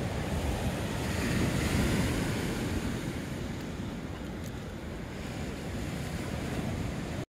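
Ocean surf breaking on a beach, with wind buffeting the microphone. A wave swells loudest about two seconds in, and the sound cuts off suddenly near the end.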